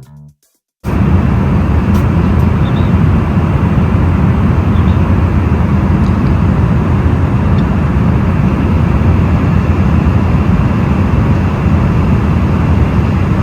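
Airliner cabin noise: a loud, steady rumble of engines and rushing air that starts suddenly about a second in and holds unchanged.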